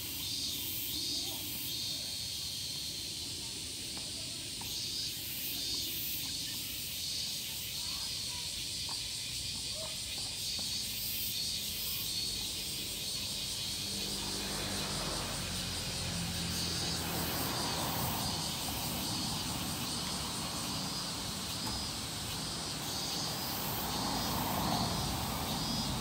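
Cicadas calling: a steady, high-pitched shrill drone with a pulsing rasp repeating several times a second. About halfway through, a low rumble joins underneath.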